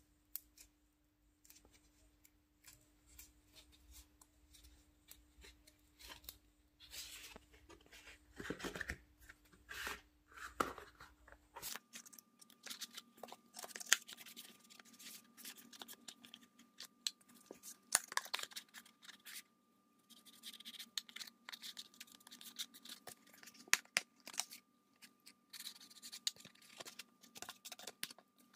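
Hands working stiff black foam prop pieces: scratching, rubbing and tearing noises with many small sharp clicks, coming and going irregularly.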